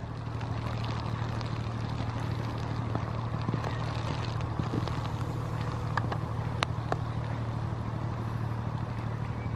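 Inland cargo ship's diesel engine running with a steady low drone as the vessel passes close by, with a few sharp ticks over it.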